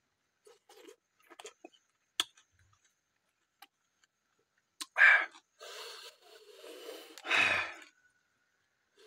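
A man eating cooked snails by hand: light clicks of shells being handled, then two loud sucking slurps, about five and seven seconds in, as snail meat is drawn out of the shells, with softer mouth noises between.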